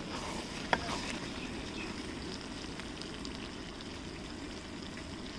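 Mutton frying in oil and masala in a large aluminium pot over a gas burner, with a steady sizzle. The metal ladle clinks once against the pot about three-quarters of a second in.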